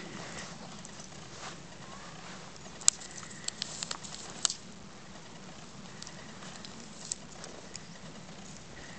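Soft crunching and scattered small clicks of a walk through deep fresh snow with a dog on a lead, with one sharp click about three seconds in and a cluster of clicks soon after.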